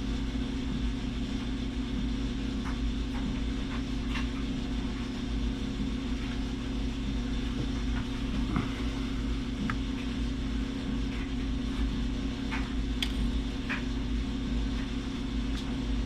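Steady low machine hum with several faint, short light clicks scattered through it.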